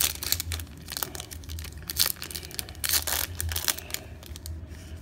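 A foil trading card pack being ripped open by hand and its wrapper crinkled: a run of irregular sharp crackles, loudest about two and three seconds in.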